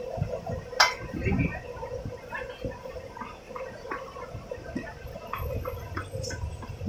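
Scattered clinks of metal tongs against steel trays and bowls as fried chicken is served, with one sharp click about a second in, over a low rumbling background.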